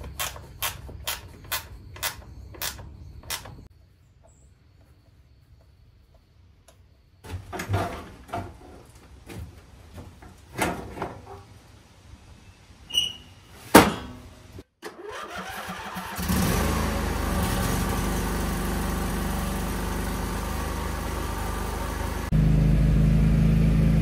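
Quick regular clicks and metal clanks of a riding lawn mower being put back together, then the mower's engine starting and running steadily on its newly fitted fuel pump, growing louder and deeper near the end.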